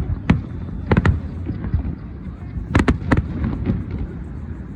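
Fireworks exploding overhead: sharp bangs in quick clusters, one near the start, a pair about a second in and three near three seconds, over a continuous low rumble of more distant bursts.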